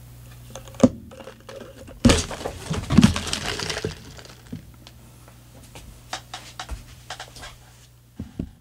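A plastic iced-coffee cup handled on a table, its ice rattling. There is a sharp knock about a second in, a loud clatter and rattle from about two to four seconds in, then a few light clinks.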